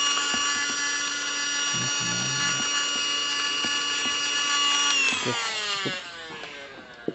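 Mini handheld vacuum cleaner running with a steady high whine, then switched off about five seconds in, its motor whine falling in pitch as it spins down.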